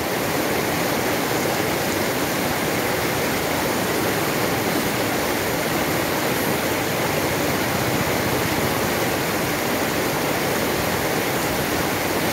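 Turbulent river water rushing and churning steadily in white water, a continuous even noise.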